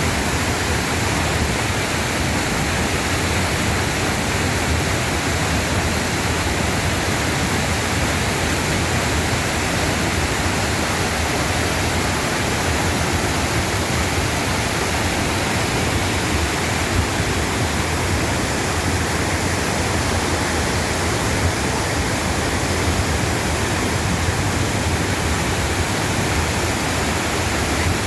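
Mountain-valley waterfall rushing steadily, an even, unbroken roar of falling water.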